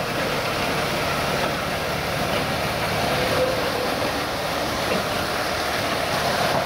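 Toyama Chiho Railway DM-13 track motor car hauling a flatcar with a mini excavator past at slow speed: a steady engine running under the rumble of wheels on the rails.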